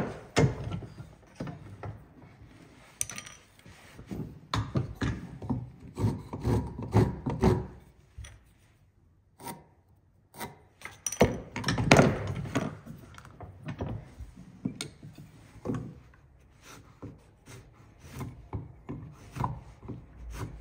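Marking gauge scribing along timber in a series of scratchy rubbing strokes, in two runs, with a sharp knock at the start as wood and gauge are handled.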